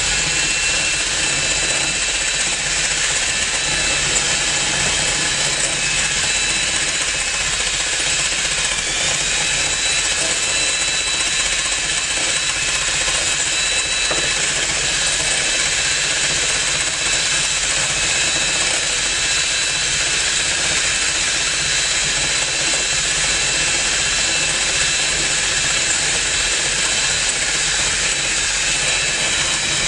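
Egg beater whirring steadily: a constant hiss with a thin high whine over it, the whine dipping briefly in pitch about nine seconds in.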